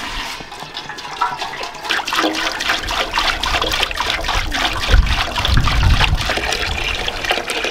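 Water pouring from a plastic jerry can into an aluminium cooking pot, splashing steadily as the pot fills.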